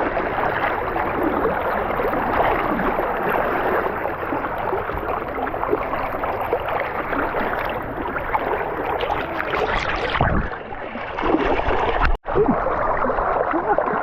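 Steady rush of waterfall water and churning stream, with a brief break just after twelve seconds in.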